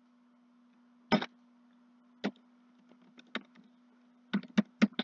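Clicks of a computer mouse and keyboard: a couple of single clicks, a few lighter ticks, then a quick run of about five keystrokes near the end, over a faint steady electrical hum.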